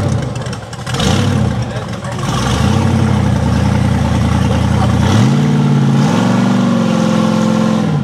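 Big-block Chevrolet 502 Ramjet V8 of a rock bouncer buggy revving under throttle. The revs fall off at first and run steady for a few seconds, then climb in two quick steps about five seconds in and hold high.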